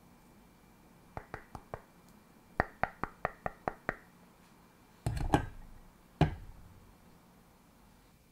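Raw chicken breast slices being pulled apart and laid into a pot of cubed tofu: a run of sharp sticky clicks, about ten in two quick runs, then two heavier wet slaps about a second apart as the meat drops onto the tofu.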